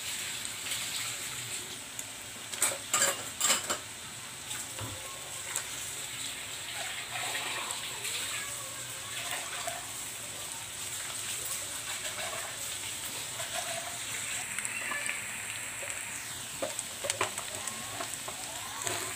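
Stir-fried bitter melon with egg sizzling in a wok, a steady hiss, with a few sharp clanks of utensils against the pan about three seconds in and again near the end.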